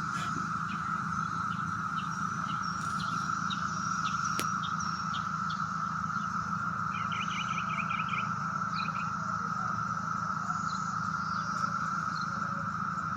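Chorus of many cicadas, a steady high drone that never lets up, with birds chirping on and off over it and a low steady hum underneath.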